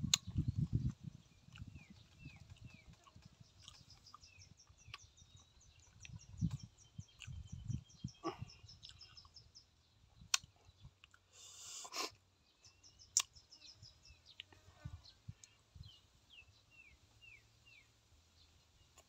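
Birds chirping in repeated series of short, quick chirps, over close-up sounds of a man chewing food. A few sharp clicks of a metal spoon against a dish come in between.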